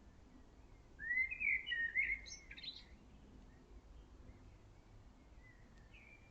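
A songbird singing one short phrase of gliding notes about a second in, with a few faint calls near the end.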